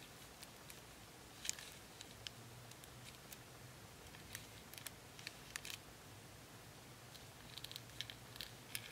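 Fingertips tapping and scratching on the foil wrappers of Pokémon booster packs, making soft scattered crinkly taps, with a quick run of taps near the end.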